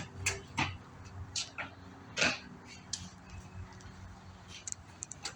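About a dozen short, sharp clicks and taps at uneven intervals, over a low steady hum.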